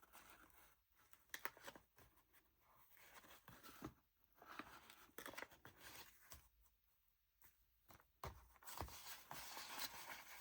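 Near silence with faint, intermittent rustles and light ticks of paper and journal pages being handled.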